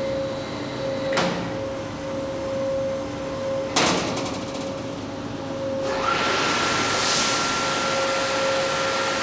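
Powered door of a stainless-steel hygiene washing cabinet sliding shut over a steady machine hum, with a knock about a second in and a loud clunk and short rattle near four seconds as it closes. About six seconds in, a steady hiss and a higher steady whine start as the machine begins its cycle.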